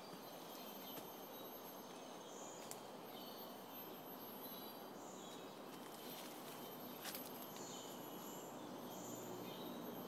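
Tropical rainforest ambience: a steady high-pitched insect drone, with short high bird chirps every second or two and a couple of faint clicks about seven seconds in.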